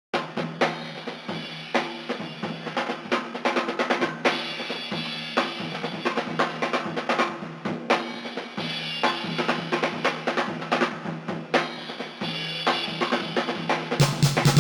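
Music: a drum kit playing a busy beat of snare, kick and rimshots, thin-sounding with the low end filtered out. Near the end the full band comes in with bass.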